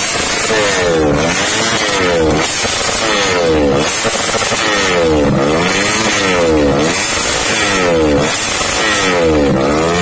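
Yamaha Jupiter Z underbone's 130cc road-race-tuned four-stroke single, fitted with an aftermarket racing silencer, revved over and over while standing still. The revs fall and then climb sharply again about every second and a half.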